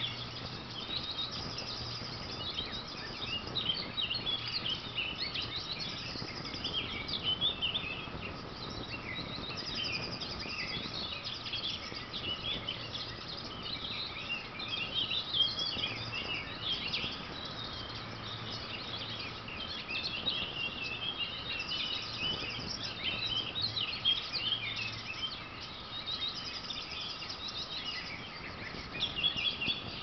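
Dense chorus of many songbirds singing and chirping at once, with one high trill recurring every few seconds.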